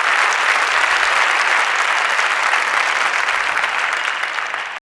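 A large audience applauding steadily, dense clapping that fades a little near the end before cutting off abruptly.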